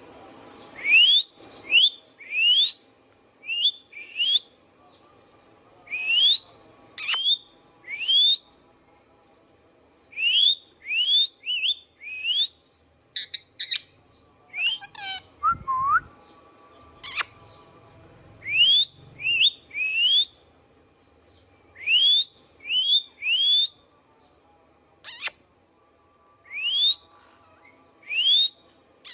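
Indian ringneck parakeet calling: short, sharp rising whistles, mostly in quick runs of two or three, repeated every second or two, with one lower falling call about halfway through.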